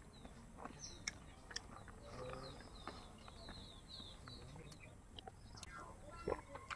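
Eating sounds: scattered sharp mouth clicks and lip smacks as a man chews rice and chicken innards eaten by hand. A bird chirps a quick run of short calls in the background about three seconds in.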